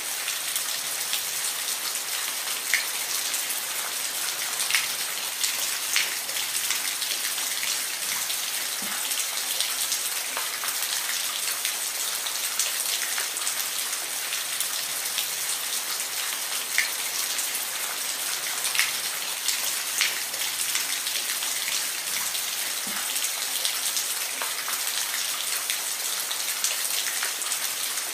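Steady rain falling on a surface: an even hiss with individual drops ticking sharply here and there.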